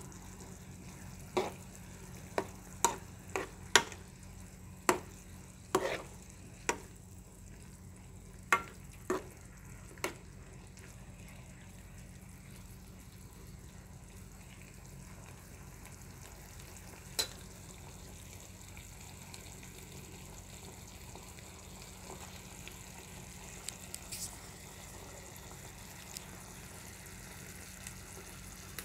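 Cucumber and carrot sticks sizzling in oil in a nonstick frying pan, with a metal spoon knocking and scraping against the pan as they are stirred, about a dozen times in the first ten seconds. After that a steady sizzle, broken by a single knock later on.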